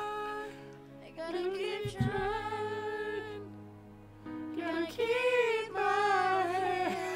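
A song: a singing voice holding long, sustained notes over a musical backing, with a brief break about halfway through.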